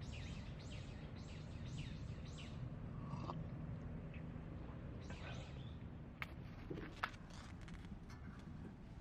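A bird calling in a quick run of about six high, falling notes, and again briefly a few seconds later, over a low steady rumble. Two sharp clicks come near the end.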